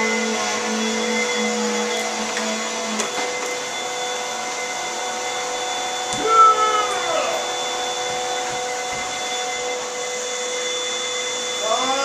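Vacuum cleaner running steadily, a constant whooshing hum with a whining tone. About six seconds in, a short wavering sound sweeps down in pitch over the hum.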